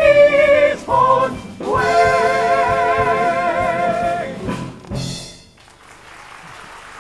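A music-hall style song from a pantomime ends with band accompaniment. The final sung note is held long with a wide vibrato, a short closing chord lands near the end, and audience applause follows.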